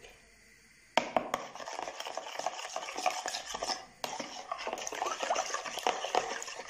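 A metal fork beating eggs into a liquid mix of yeast water, yogurt and oil in a ceramic bowl, scraping and clinking against the bowl in quick strokes. It starts about a second in and pauses briefly near the middle.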